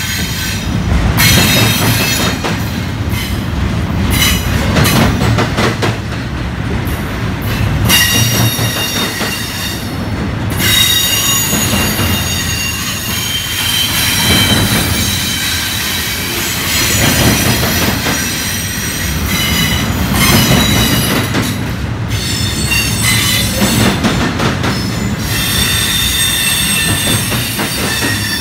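Double-stack intermodal freight train's loaded well cars rolling past close by: a steady rumble of steel wheels on rail, with high-pitched wheel squeal that comes and goes over it.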